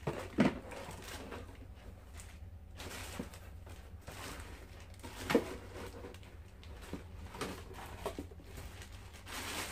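Cardboard box and plastic wrapping being handled as a cat water fountain is unpacked: rustling with scattered knocks, the sharpest about half a second in and about five seconds in.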